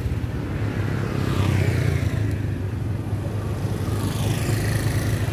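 A motor vehicle's engine running steadily with a low hum.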